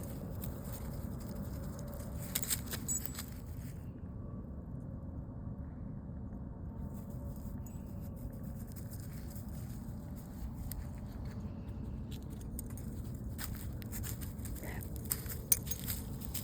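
Dogs moving about on the ground: short scratchy rustles and clicks about two seconds in and again in a cluster near the end, over a steady low rumble of outdoor noise.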